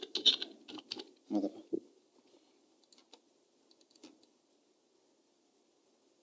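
Typing on a computer keyboard: a quick run of keystrokes in the first two seconds, then a few scattered, fainter key taps.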